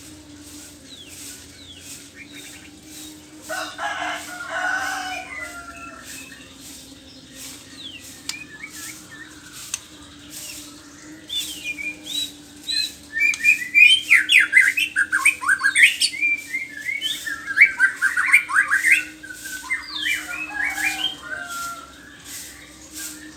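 White-rumped shama (murai batu) singing rapid, varied phrases: a short burst about four seconds in, then a long run of song from about eleven to twenty-one seconds, over a steady low hum.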